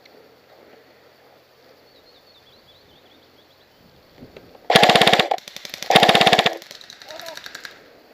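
Airsoft gun firing two short full-auto bursts of rapid clicking shots, each about half a second long, followed by a quieter rattle of more automatic fire.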